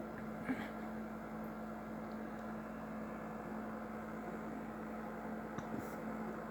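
A pot of water heating toward a boil on an electric stove: a steady hum with a sharp tick about half a second in and a few faint ticks near the end.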